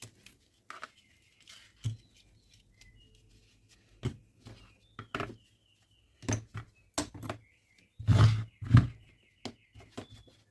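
Scattered clicks and light knocks of hand-handling a Dyson cordless-vacuum battery pack, with a bird chirping faintly in the background in the second half.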